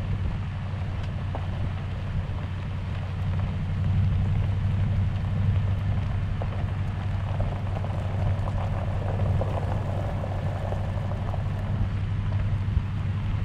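Toyota Tundra TRD Pro driving slowly on a gravel road, heard from outside the truck: a steady low engine hum with the tyres crackling over loose gravel.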